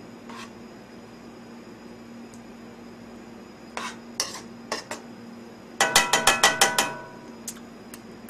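Metal spoon stirring kimchi stew in a pan, clinking against the pan now and then, then a quick run of about eight ringing clinks, the loudest sound, about six seconds in. A faint steady hum lies underneath.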